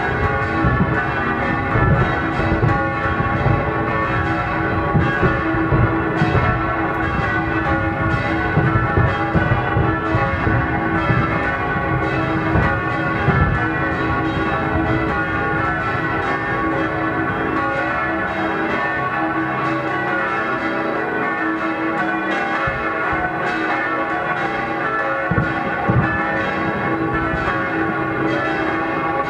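Church bells pealing steadily, with low firework bangs and rumble underneath that are busiest in the first half.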